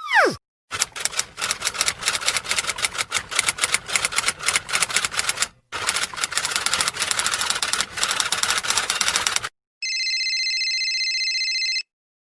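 Typewriter typing sound effect: rapid key clicks in two long runs with a brief break between them, followed by a steady electronic tone lasting about two seconds. It opens with the tail of a quick downward pitch swoop.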